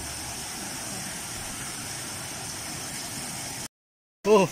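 Steady outdoor background noise with no distinct events, which cuts out abruptly near the end. A brief loud voice follows right after.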